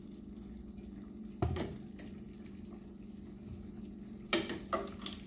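Metal kitchen tongs knocking against a pot and a glass bowl a few times while steamed broccoli is lifted out, one sharp knock about a second and a half in and a pair near the end, over a steady low hum.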